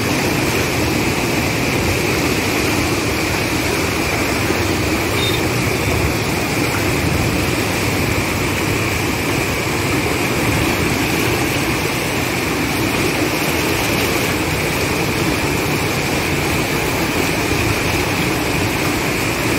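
Fast river water rushing and churning over a low ledge in white-water rapids, a loud steady noise that does not let up.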